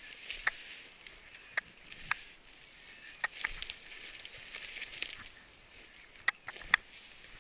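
Footsteps through dense dry scrub: undergrowth rustling with several short sharp cracks of snapping twigs and brush, the loudest near the end.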